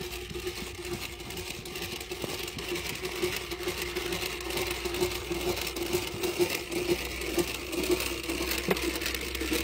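Cast-iron hand-cranked rope-making machine running, its gears giving a steady whir with a fast, even rattle as the hooks spin to twist sisal strands into rope.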